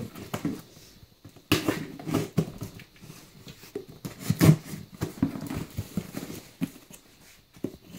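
A cardboard shipping box being handled and cut open: irregular thumps and scrapes of the cardboard, the loudest about four and a half seconds in.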